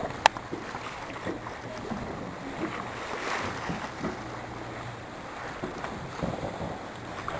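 Wind on the microphone and water rushing past the hull of a sailboat under way, with one sharp click just after the start.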